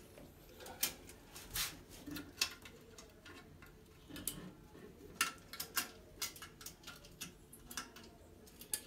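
Irregular small clicks and light splashes of water as a hand gropes down in a toilet bowl's trap for a lodged remote control.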